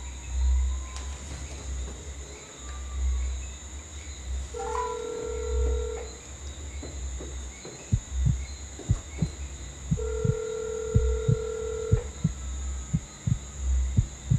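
Phone ringback tone heard through the handset's speaker: a steady tone ringing twice, about two seconds on and four seconds off, as the outgoing call rings unanswered. A low thumping pulse, like a heartbeat, runs underneath.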